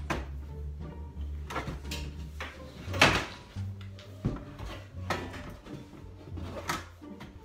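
Knocks and clicks of a Howdens flat-pack kitchen drawer's panels being handled and fitted together, with the loudest knock about three seconds in.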